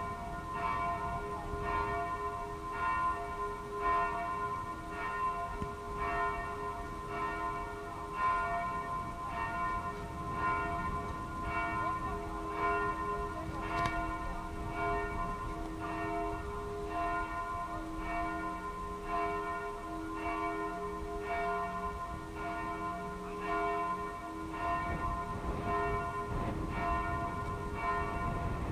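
Bells of the Cathedral of Saints Peter and Paul's tower ringing together in a steady peal, a regular run of strokes with their tones hanging on between them.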